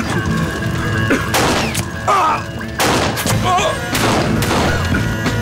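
A series of pistol shots, about a second apart, over dramatic background music.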